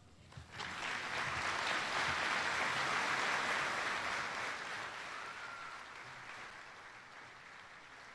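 Audience applauding after a speech. It starts about half a second in, builds to its fullest in the first few seconds and then slowly dies away.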